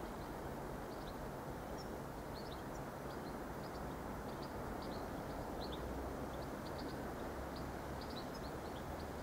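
Small birds chirping in many short, high notes over a steady low rumble and hiss from an Irish Rail 22000 class diesel multiple unit still far off down the line.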